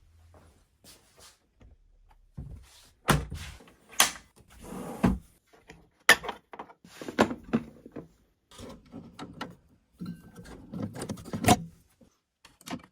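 An irregular series of sharp knocks, clicks and dull thuds, like hard parts or wood being handled and set in place. No motor is running.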